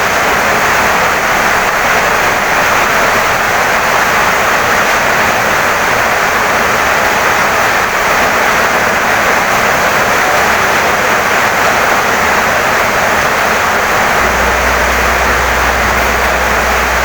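Heavy rain pouring steadily on a wooden house, an even, unbroken hiss. A low rumble joins in about three-quarters of the way through.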